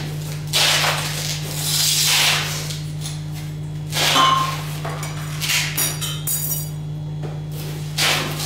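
Short scrapes and clinks of tools and gloved hands working on a steel pipe joint, over a steady low machine hum.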